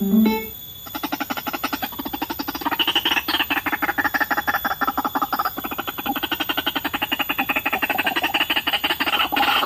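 White-breasted waterhen calls: a long, fast run of harsh pulses with several pitches at once, after a brief squeal at the very start.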